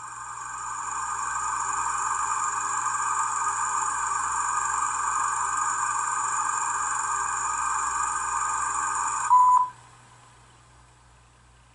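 Steady whirring noise that swells in over the first two seconds, holds level, then cuts off suddenly about nine seconds in with a short, loud single beep.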